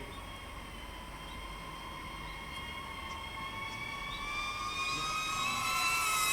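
DJI FPV drone's propellers whining, growing steadily louder as it approaches, the pitch edging up near the end.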